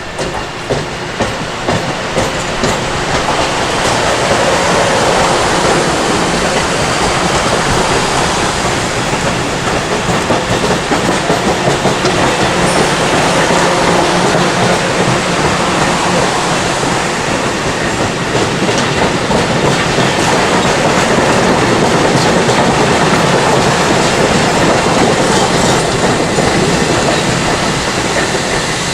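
Long Island Rail Road train rolling past at close range, wheels clicking over the rail joints, growing louder over the first few seconds and then holding steady.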